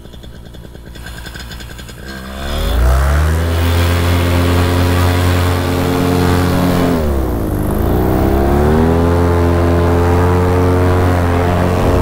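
Paramotor engine and propeller idling, then throttled up to full power for the takeoff run about two seconds in, running loud and steady; the pitch sags and climbs back to full power about halfway through.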